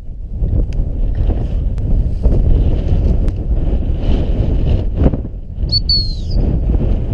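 Strong wind buffeting the microphone, a heavy steady rumble. About six seconds in, a short high whistle-like tone falls in pitch.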